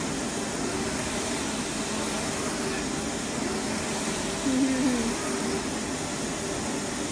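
Large flatbed UV printer running, a steady rushing machine noise while its print carriage with the UV curing lamp moves over a glass sheet. About four and a half seconds in there is a brief voice-like sound, the loudest moment.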